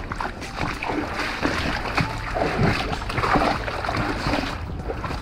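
River water splashing irregularly, the kind of surface splashing a hooked trout makes while it is being played towards the net.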